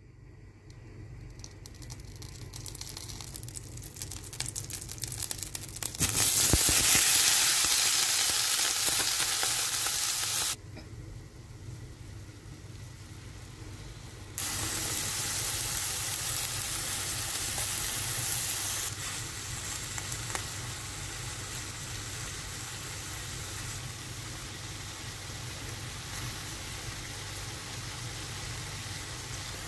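Butter sizzling in a stainless steel pan with paneer cubes, then onion, green capsicum and coriander frying in it. The sizzle builds over the first few seconds and is loudest for a few seconds from about six seconds in. The level then drops and rises suddenly and settles to a steady sizzle.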